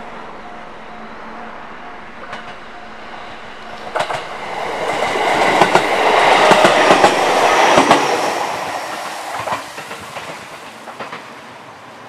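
JR Central 313 series electric train passing close by: the running noise and clack of its wheels over the rail joints swell to a peak in the middle, then fade as it moves away.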